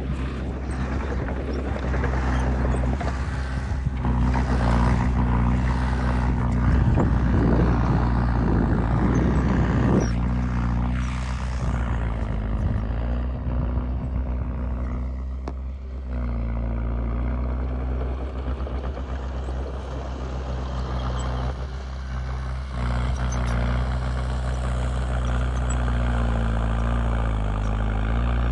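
Heavy diesel engine of earth-moving machinery running continuously. It works louder and busier for about the first ten seconds, dips briefly past the middle, then settles to a steadier run.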